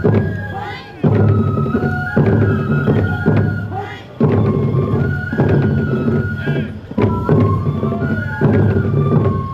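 Tiger-dance festival music: bamboo flutes playing a high, sliding melody over taiko drum beats that strike every second or two.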